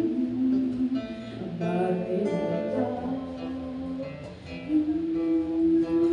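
Acoustic guitar strumming chords in an instrumental passage, the chords changing every second or two.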